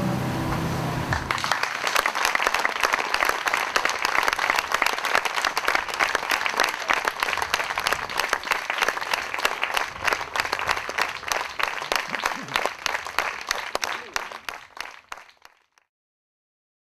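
Audience applauding: dense hand-clapping that starts about a second in, as the music's last note dies away, then thins out and fades to silence near the end.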